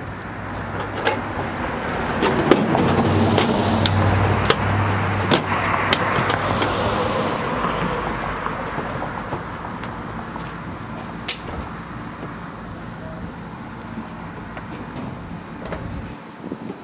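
A passing car swells and fades over about fourteen seconds, loudest a few seconds in. Scattered sharp clicks and knocks of plastic sewing-machine cases being handled sound over it.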